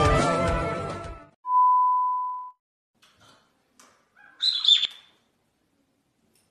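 Music fades out about a second in. It is followed by a steady one-second electronic beep tone, then short high chirps about four and a half seconds in.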